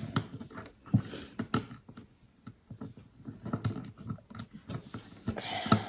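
Plastic Lego bricks clicking and clattering as hands pick through a loose pile and fit pieces together: a run of small, irregular clicks and taps.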